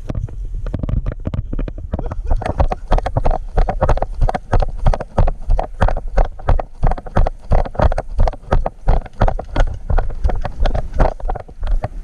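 Rhythmic thuds with rustling, about three a second, over a low rumble of wind on the microphone.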